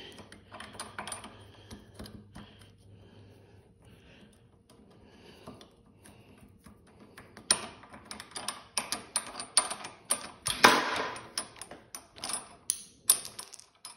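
Handling noise: faint at first, then from about halfway a rapid, irregular run of sharp clicks and knocks, the loudest about ten and a half seconds in.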